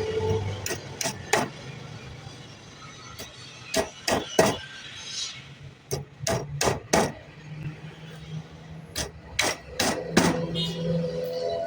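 Hammer blows on wood, sharp knocks in groups of three or four about three a second, with pauses of a second or two between groups.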